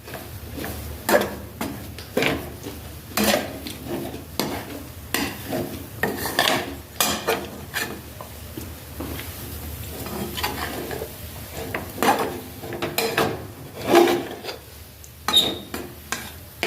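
A metal spoon or spatula stirring and scraping in a metal cooking pot, with irregular clinks and clatters against the pan.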